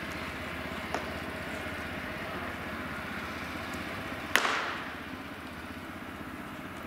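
A pitched baseball smacking into a catcher's mitt with a sharp pop that rings out briefly, about four seconds in, and another pop near the end, over a steady background hum.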